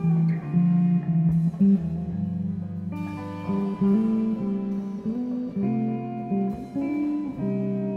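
Instrumental music of plucked guitar notes, the melody moving from note to note.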